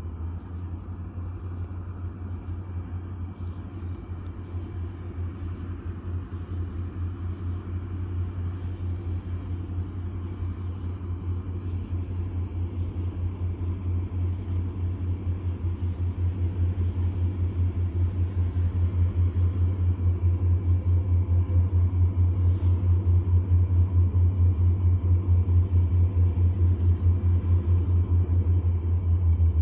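Diesel locomotive approaching, its engine a deep, rapidly pulsing rumble that grows steadily louder as it nears.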